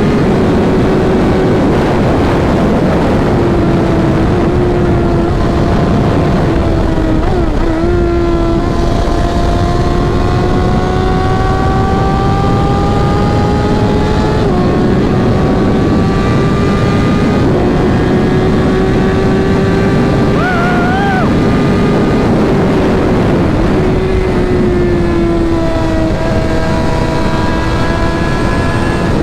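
Tuned Suzuki GSX-R1000's inline-four engine running under way with heavy wind rush. The engine pitch climbs slowly and dips briefly a few times, about a third, a half and four fifths of the way through.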